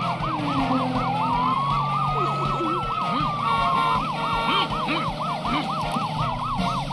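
Cartoon police sirens: a fast yelping siren sweeping up and down about four times a second, overlaid by a slower siren that rises and falls in long wails. Around the middle a car horn sounds in quick repeated beeps.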